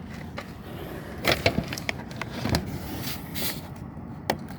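Scattered plastic clicks and knocks as a car's interior door panel is handled and its light connector is worked free, over a steady low hum.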